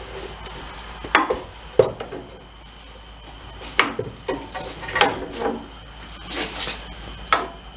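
Scattered metal clinks and knocks, about eight over several seconds, as a front coil-spring strut assembly topped with a leveling spacer is worked up into the front suspension and bumps against the control arms and frame.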